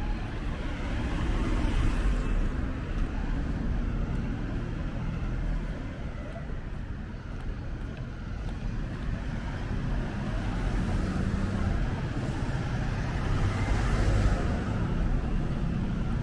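City street traffic: cars passing on the road alongside, a steady low rumble that swells twice as vehicles go by, about two seconds in and again near the end.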